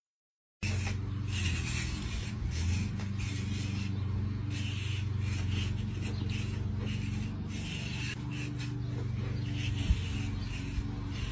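A hand tool scraping across rough render in short, repeated strokes, tracing the outlines of faux stones, over a steady low hum.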